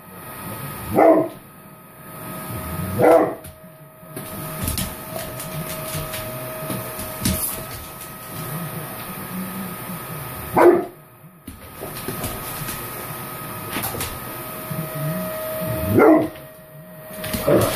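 Bullmastiff barking at a running vacuum cleaner: five deep single barks spaced out, over the vacuum's steady hum and hiss.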